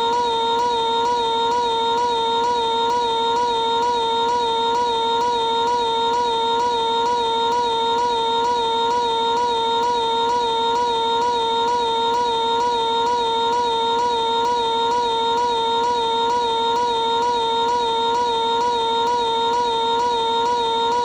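Piglet's cartoon voice held on one high scream, stretched into a single unbroken tone with a slight regular wobble a few times a second.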